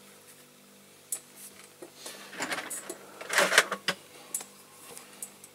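Clicks and clatter of small metal and plastic diecast model car parts being handled and fitted together. A few single clicks come first, then a busier run of clatter about two to four seconds in, loudest around three and a half seconds in.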